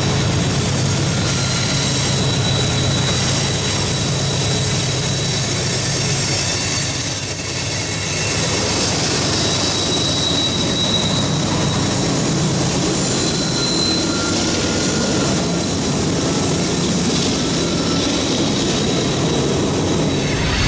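Train rolling past on a mountain line: a steady rumble and rush of wheels on rail, with a thin high squeal coming and going.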